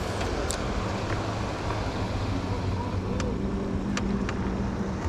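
A motorboat's engine passing close by, running at a steady hum over wind and water noise, with a few faint clicks a little over three and four seconds in.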